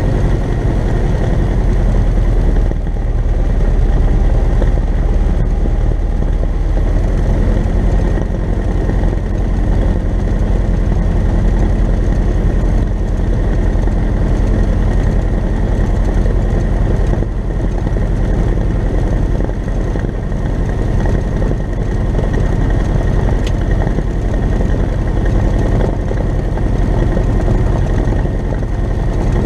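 Cessna 172N's four-cylinder Lycoming O-320 engine running steadily at low power on the ground, heard from inside the cockpit as an even, deep drone.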